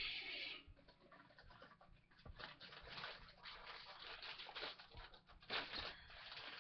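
Faint scattered rustling and light taps, after a steady hiss cuts off about half a second in.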